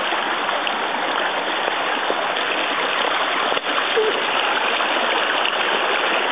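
Small mountain stream rushing and splashing over rocks, a steady rush of water.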